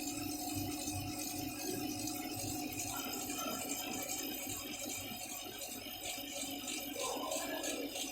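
Small CO2 laser engraving machine at work, its gantry stepper motors rattling in a fast, even rhythm as the head moves back and forth, over a steady hum from the machine's fans and air pump.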